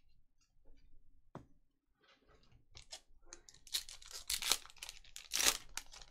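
A trading card pack's wrapper being torn open and crinkled. A few faint ticks come first; the tearing starts about two seconds in and is loudest in the second half.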